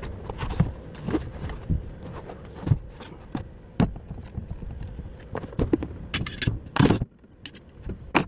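Irregular knocks and clatter as a new bracketed brake caliper and its cardboard box are handled and set down on a plastic truck bed liner, with a cluster of sharper clicks about six to seven seconds in.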